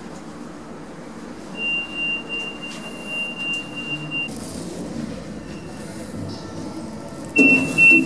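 Automatic lift's electronic signal: a steady high beep held for about three seconds, then near the end a loud clunk and rapid repeated beeps as the automatic lift doors begin to close.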